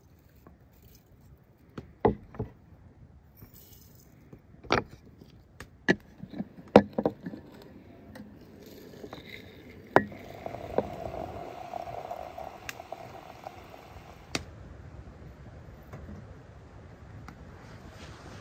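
A run of sharp clinks and knocks of glass and crockery as a glass teapot is readied, then hot water running from a metal samovar's tap into the glass teapot for about four seconds, ending with a click.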